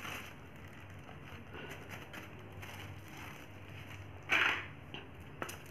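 Thin plastic bag rustling and crinkling as green rangoli powder is emptied from it into a plastic tub, with a louder rustle about four and a half seconds in.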